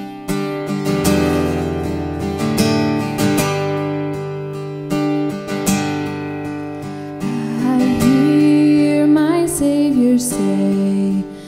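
Live worship band playing a hymn: strummed acoustic guitar over bass and drums, with singing coming in about eight seconds in.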